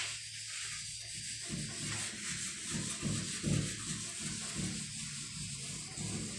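A whiteboard being wiped clean by hand, with uneven rubbing strokes across its surface as the written working is erased.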